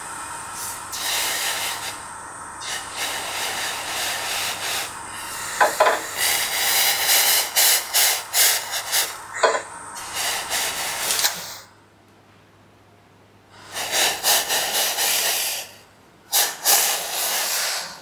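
Loud, uneven hissing like escaping steam, coming in surges. It cuts out for about two seconds roughly two-thirds of the way through, and briefly again near the end.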